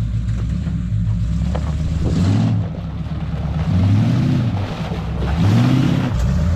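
Truck engine idling, revved up and let back down three times.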